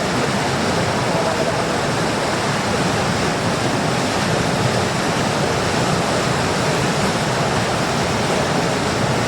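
A steady, even rushing noise, like flowing water, that sets in suddenly at the start and holds at one level.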